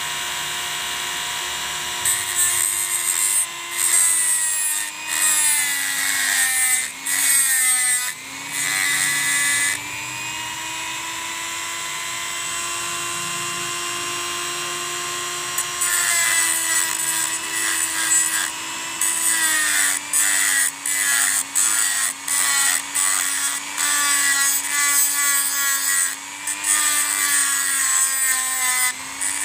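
Electric rotary tool with a small cutting disc whining steadily, its pitch dipping each time the disc grinds against the steel pickup trigger lug on a motorcycle's magneto flywheel, cutting the lug down to change the ignition pulse. The grinding comes in many short passes, with a stretch of several seconds about a third of the way in where the tool only runs free.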